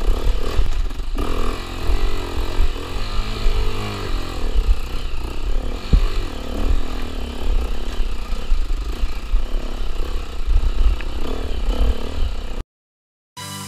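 KTM EXC-F 250's four-stroke single-cylinder engine pulling the dirt bike over a rocky track, its pitch rising and falling with the throttle, with wind buffeting the microphone and stones clattering; a sharp knock about halfway through. Near the end the sound cuts out for a moment and music starts.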